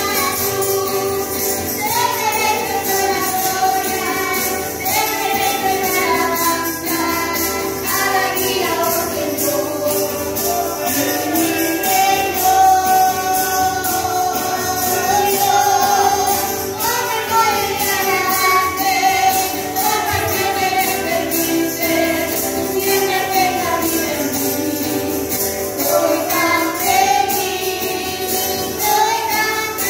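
A choir of women and children singing a worship hymn together, with guitar accompaniment and a tambourine keeping a steady beat.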